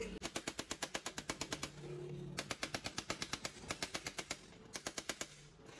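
Rapid metallic tapping, about ten strikes a second in three runs with short pauses, as a hammer chips welding slag off a freshly welded joint between a steel nut and a rebar rod.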